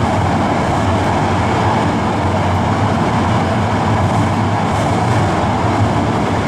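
Electric commuter train running at speed through a subway tunnel, heard from inside the car: a steady rumble of wheels on rail and traction motor hum, with the tunnel enclosing the noise.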